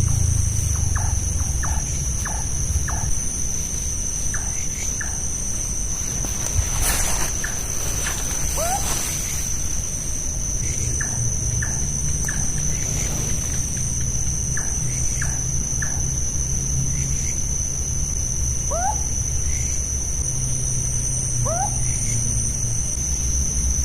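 Night forest chorus, very noisy: a steady high-pitched insect drone throughout, with many short repeated chirping calls and, three times in the second half, a quick rising call from an animal. A low rumble runs underneath.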